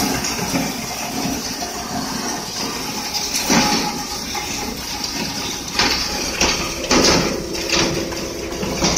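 A stainless-steel bone crusher running. Its steady motor noise is broken by irregular sharp cracks and knocks as bones are broken up inside, from about three and a half seconds in.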